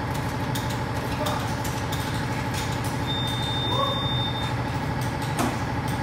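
A steady low machine hum with scattered clicks and knocks from tools and wheel work during a tire change, and a thin high tone for about a second and a half just past the middle.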